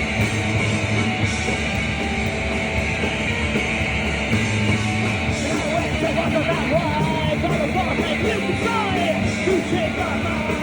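Live punk rock band playing, with distorted electric guitar over bass and drums; a singer comes in shouting the vocals about halfway through.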